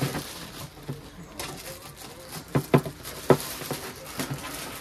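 Thin plastic wrapper crinkling and rustling as it is pulled off a metal portable grill case, with a few sharp knocks a little past halfway as the case is handled.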